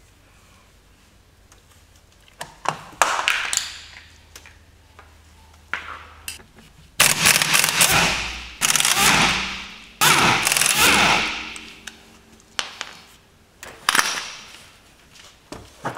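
Impact wrench hammering the rear wheel bolts loose. It comes in about four runs of a second or two each, starting about three seconds in, with a short clunk near the end.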